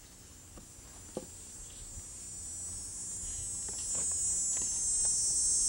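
Steady high-pitched buzz that grows louder over the second half, with a couple of faint knocks in the first second or so.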